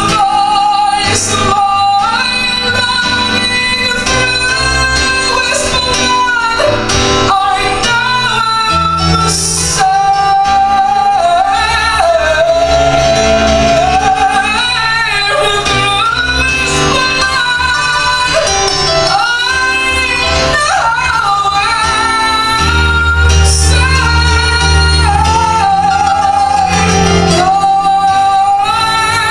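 A Southern gospel quartet's lead singer sings a melody with live piano accompaniment.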